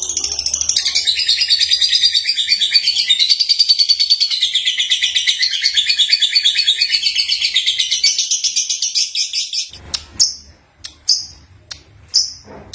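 Young lovebird (Agapornis) singing: a long, loud, rapid chattering warble pulsing many times a second, which breaks off near the end into a handful of short separate chirps.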